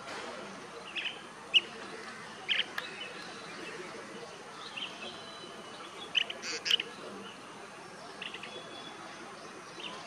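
Blue-tailed bee-eater giving short, sharp chirping calls: a pair about a second in, one more near two and a half seconds, a quick cluster around six to seven seconds, and a couple of fainter ones near the end.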